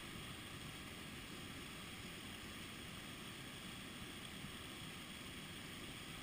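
Havasu Falls waterfall rushing: a faint, steady, even rush of falling water.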